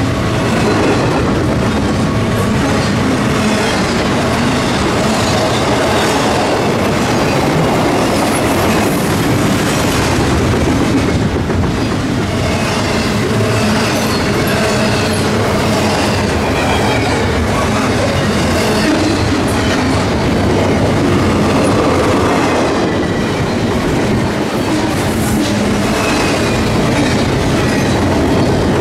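Freight train rolling past close by, with steady wheel and rail noise and clacking over rail joints, and faint wheel squeal now and then.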